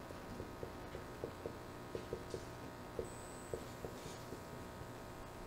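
Dry-erase marker writing on a whiteboard: faint, irregular taps and short strokes a few times a second over quiet room tone.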